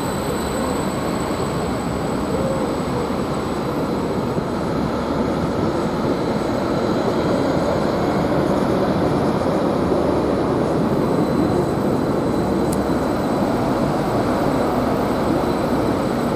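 Greater Anglia Class 755 bi-mode multiple unit running past or through the station: a steady rumble of engines and wheels on track, swelling slightly in the middle, with a faint high whine.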